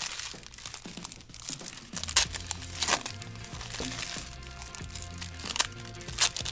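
Foil wrapper of a trading-card pack crinkling as it is torn and handled, with cards being shuffled, in several sharp crackles. Background music with sustained tones and a low bass line plays underneath.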